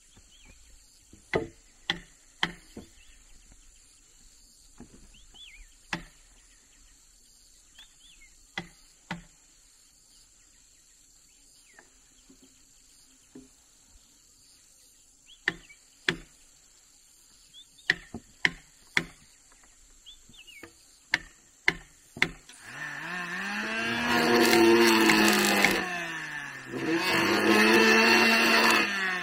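Sharp knocks on wood, single or in quick pairs every second or two, with insects and a few bird chirps faintly behind. About 22 seconds in, a power tool's motor starts up loudly, its pitch dropping and recovering twice as it labours under load in the wood.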